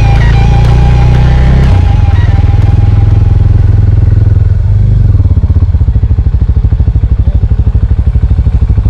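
Small 250 cc Suzuki motorcycle's engine running as the bike rolls slowly, settling about five seconds in to an idle with an even, rapid pulsing beat.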